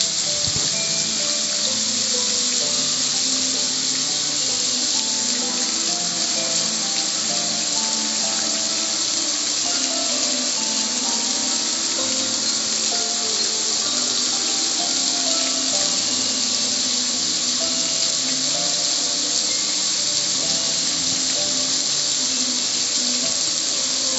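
Garden hose spray striking the lid and front panel of a gas grill, with a steady hiss of water spattering and running down the metal.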